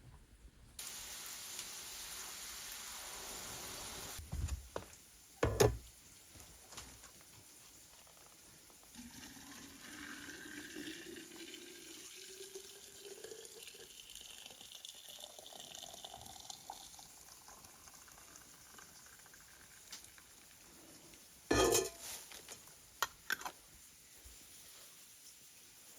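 Water runs steadily for a few seconds, then come two knocks, then liquid pours into a container with a pitch that rises as it fills, for about eight seconds. A loud knock and a couple of lighter ones come near the end.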